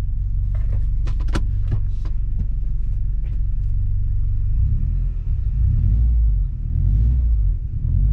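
Subaru Forester XT being driven: a steady low rumble of engine and road, with a few clicks in the first couple of seconds. The rumble gets heavier and more uneven from about halfway.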